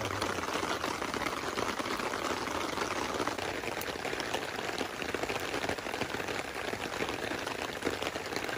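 Steady rain pattering, mixed with the crackle of split logs burning in a steel fire pit.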